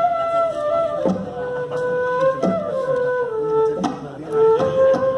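Live mashup of transverse flute, acoustic guitar and dholak. The flute plays a slow melody of long held notes, and there are occasional dholak strokes.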